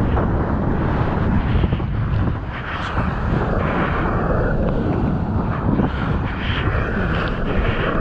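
Rushing whitewater and the surfboard hissing across the wave face, heavily buffeted by wind on the action-camera microphone: a loud, steady rumbling roar.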